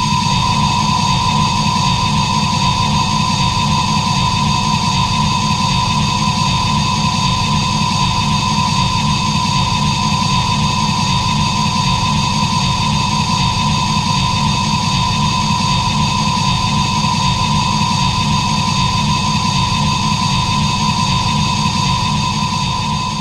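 A kaiju sound effect: a steady, unchanging drone with a high whistling tone over a low fluttering rumble. It cuts in abruptly and fades out near the end.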